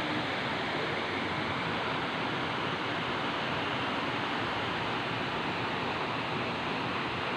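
Strong, fast-flowing river water gushing out of a dam outlet into a concrete channel: a steady, even rush of water.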